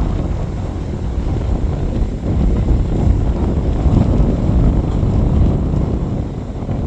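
Strong wind buffeting the microphone: a loud low rumble that swells and eases in gusts.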